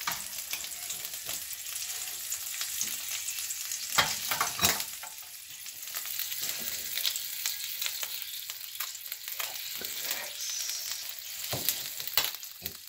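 Squid frying in a pan: a steady sizzle with a scatter of small crackling pops as the squid spits in the oil. A couple of louder knocks come about four seconds in.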